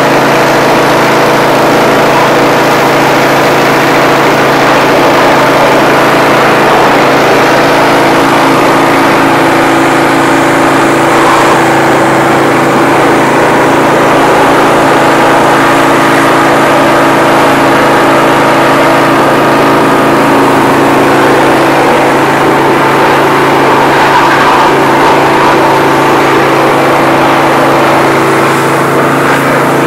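Troy-Bilt pressure washer's small gas engine running steadily at a constant pitch, with the hiss of its spray wand blasting water onto a riding mower's engine.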